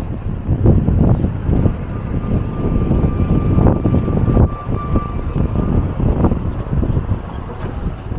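Double-decker sightseeing bus pulling up to a stop: a low engine rumble with thin, high brake squeal held for several seconds as it slows.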